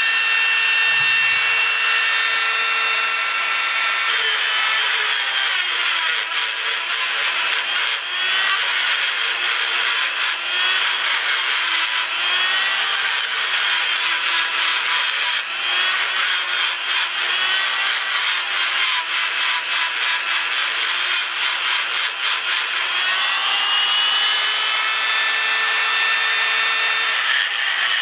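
Handheld rotary tool with a small abrasive grinding stone grinding down the rivets on a tractor brake shoe. It makes a steady high whine that drops in pitch and wavers while the stone bears on the metal from about four seconds in. Near the end it briefly rises back to its free-running pitch before biting in again.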